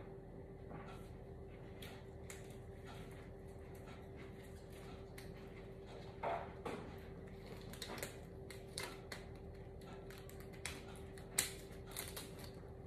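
Faint scattered clicks and knocks of a person moving about and handling things, with a slightly louder knock about six seconds in and another near the end, over a steady faint hum.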